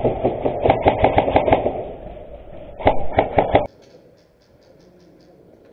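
Airsoft AR-15-style rifle firing rapid full-auto bursts, about seven or eight shots a second: a run of about a second and a half, then a shorter burst near the middle. After that it drops suddenly to faint, rapid clicking of more distant fire.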